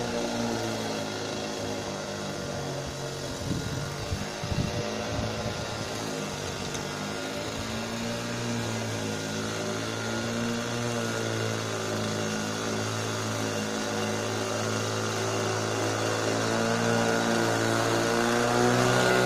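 Old Tomos petrol lawn mower with a UMO 06 engine running steadily while cutting grass, with a few short knocks about four seconds in. It grows louder near the end as it comes closer.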